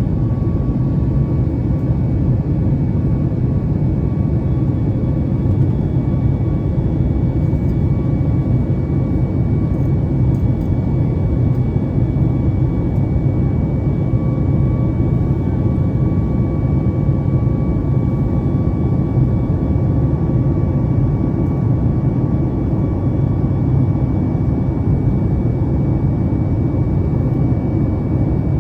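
Steady cabin noise of a Boeing 737-8 MAX airliner, heard from inside the cabin: its CFM LEAP-1B jet engines and the airflow make a loud, even low rumble, with a faint steady whine on top.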